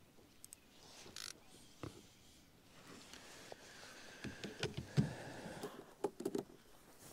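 Fishing rod, reel and rod holder handled on a kayak: scattered clicks and knocks as the rod is set back into its holder, busiest between about four and a half and six and a half seconds in.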